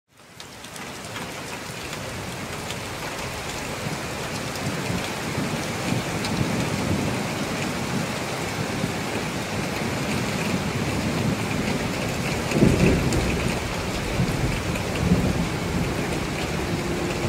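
Steady rain falling, fading in at the start, with low rumbles of thunder, the loudest about two thirds of the way through.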